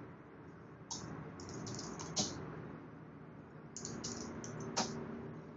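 Typing on a computer keyboard: two short runs of keystrokes, each ending in one harder key press, the Enter key sending a short command.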